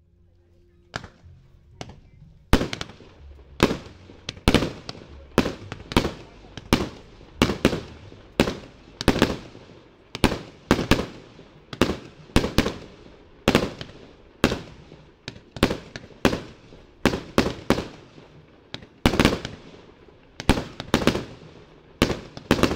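A 49-shot 30 mm (1.2-inch) consumer fireworks cake, the Triplex TXB499 Fire Bull, firing its shots. After a couple of faint pops, a steady run of sharp bangs starts about two and a half seconds in, about one and a half a second.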